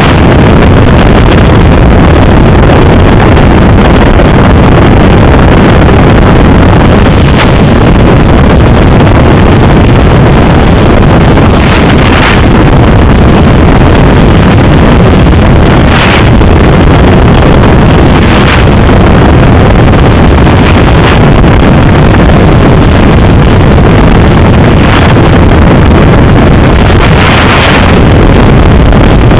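Loud, steady rushing noise on the audio channel of a Bixler 2 FPV plane's analog video link in flight, with a few brief louder swells every few seconds.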